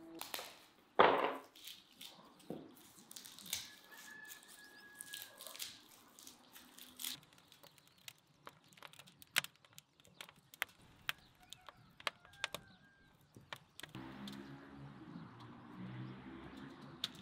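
One loud knife chop about a second in, then a wood fire crackling with sharp, irregular pops for about twelve seconds. Near the end, poultry calling in low, repeated calls.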